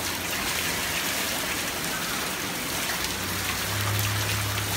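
Steady rain falling on pavement and grass. A low steady hum comes in about three seconds in and continues to the end.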